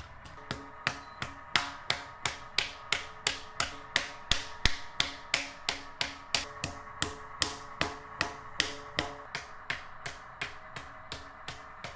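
Even, rhythmic knocking, about three strikes a second, with a short ringing after each blow, typical of a wooden paddle beating the wall of a large onggi clay jar.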